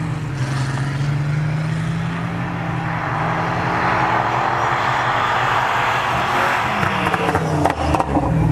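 Swapped V8 engine in an off-road Jeep running at high revs with a steady note as the Jeep slides through snow, with a rushing noise swelling in the middle.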